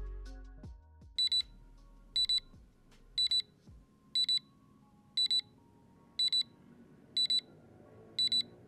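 Digital LED clock's alarm going off: a high-pitched double beep repeated once a second, starting about a second in.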